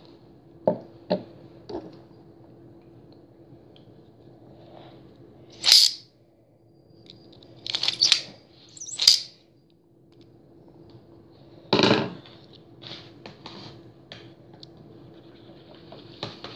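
Scattered clicks and short rustling bursts of things being handled close to the microphone, over a faint steady hum: three sharp clicks near the start, then several brief hissy rustles and a few small ticks.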